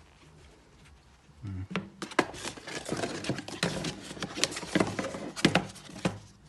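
Hands handling and opening the packaging of a car wax: a busy run of clicks, taps and rubbing that starts about a second and a half in and stops shortly before the end.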